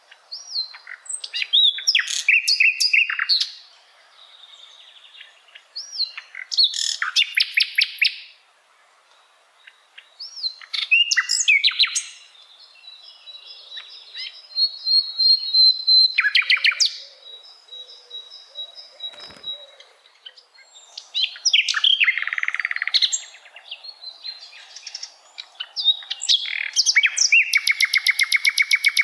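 Common nightingale (sikatan londo) singing in separate phrases a few seconds apart. The phrases mix clear whistles with fast repeated notes and rattling trills, with one long level whistle about halfway through and a fast rattling trill near the end.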